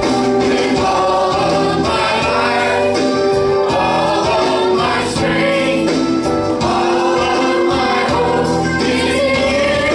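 Church choir and lead singers on microphones singing a gospel song over musical accompaniment.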